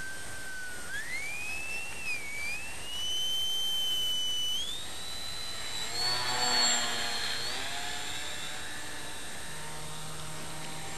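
Small brushless electric motor and propeller of an RC foam airplane whining in flight, its pitch climbing in steps and loudest as it passes low about six to seven seconds in, then fading away.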